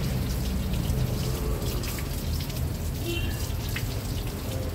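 Paintbrush scrubbing cleaning solution over a diesel engine's aluminium rocker cover and intake manifold: wet brushing strokes over a steady low hum.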